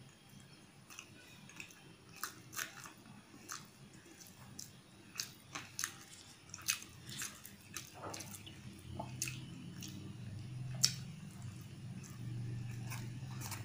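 Close-up chewing and mouth smacks from a man eating puri with potato curry by hand, with short sharp clicks every second or so. A low hum comes in about nine seconds in and runs under the chewing.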